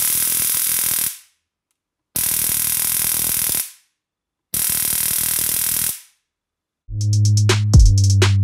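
A homemade high-voltage dog chaser sparking across its discharge gap in three bursts, each about a second and a half long, with short pauses between them. Electronic music with a heavy beat starts near the end.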